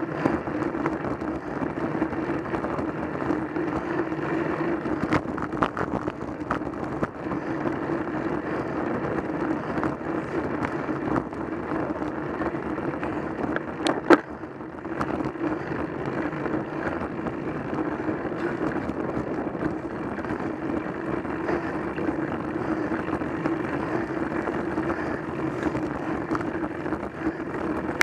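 Steady wind and road noise at a camera mounted on a moving road bike, a constant rushing with a low hum in it. A single sharp click about halfway through stands out above it.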